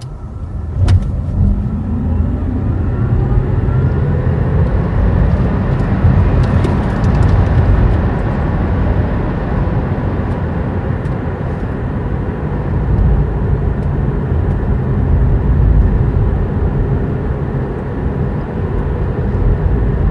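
Battery electric car accelerating at full throttle, heard from inside the cabin. A faint motor whine rises in pitch over the first few seconds above a loud, steady rumble of road and tyre noise, with one sharp click about a second in.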